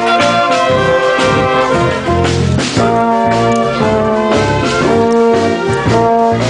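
Live band music: saxophones playing a tune in held, changing notes over an electronic keyboard played through a portable loudspeaker.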